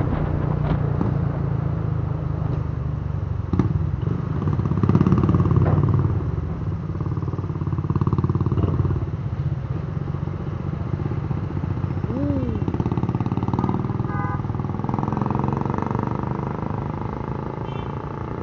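Motor scooter engine running with road noise in city traffic, with a few short beeps about fourteen seconds in. The engine and road noise fade as the scooter slows to a stop near the end.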